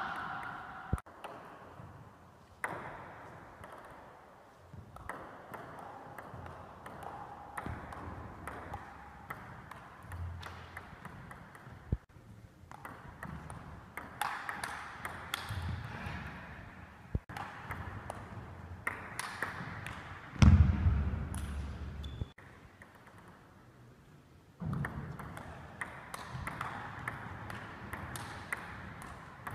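Table tennis ball clicking off the paddles and the table in rallies, ringing in a large sports hall. A loud low thump about twenty seconds in.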